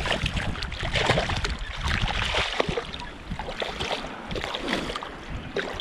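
Wind buffeting the microphone in irregular gusts over the wash of surf on the beach.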